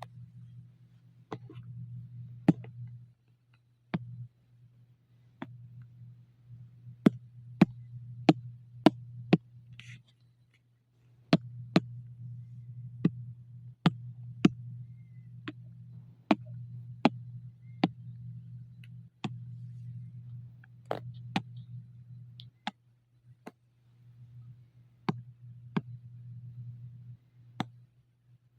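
Computer mouse clicking, sharp single clicks at irregular intervals, roughly one a second, over a low hum that cuts in and out.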